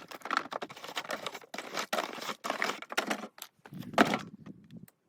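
Irregular close rustling and crinkling in a small room, loudest about four seconds in and stopping abruptly just before the end.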